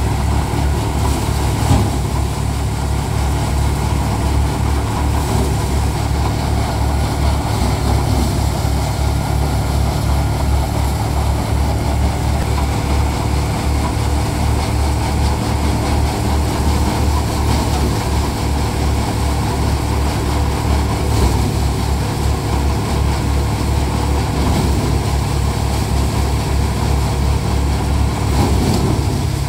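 Tractor's diesel engine running steadily with an even, pulsing low rumble, powering a five-fan paddy thresher.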